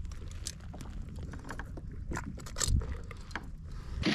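Irregular clicks and scrapes of an unhooking tool working a deeply taken hook out of a thornback ray's mouth, over a low steady rumble of wind on the microphone.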